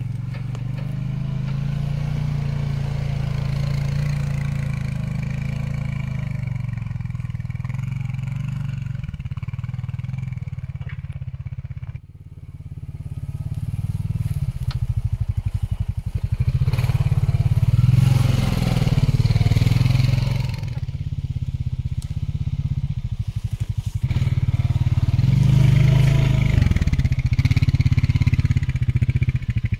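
Honda TRX520 ATV's single-cylinder engine running as it is ridden over rough ground: steady at first, then, after a short drop about twelve seconds in, revving up and down in repeated swells with the throttle.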